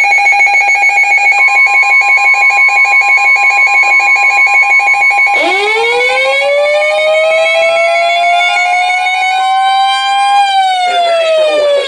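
Emergency alert tones: a rapidly pulsing electronic beep with a steady tone joining it. About five seconds in, a siren winds up slowly, then starts winding down near the end.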